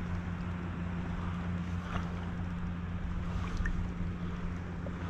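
Light water splashing and dripping beside a kayak hull as a fish is released by hand, over a steady low rumble of wind on the microphone.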